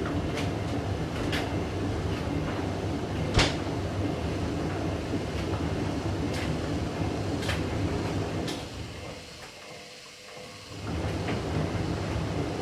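Hoover DYN9144D3X washing machine drum turning with a heavy blanket load, rumbling with clicks and clunks as the load tumbles, and one sharp knock about three and a half seconds in. Near the end the drum sound dies away for about two seconds, then starts up again. It is the machine redistributing an out-of-balance blanket load, failing to get into its final spin.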